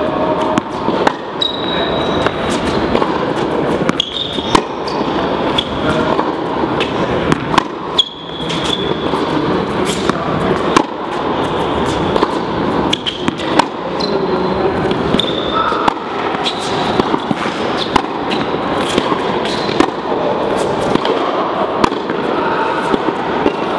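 Tennis ball struck by a racket and bouncing on an indoor hard court, sharp echoing hits every second or two, with short high squeaks of shoes on the court over a steady background din.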